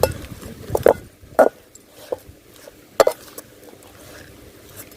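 A metal spatula stirring onions, garlic and thoothuvalai leaves sautéing in a pan, giving a few sharp knocks against the pan about a second or so apart.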